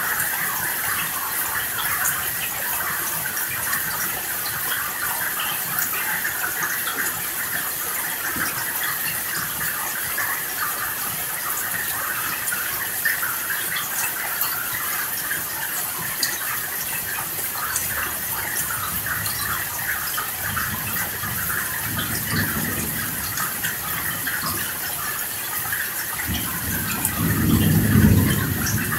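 Steady heavy rain hissing and pattering, with two low rolls of thunder in the second half, the second and louder one swelling near the end.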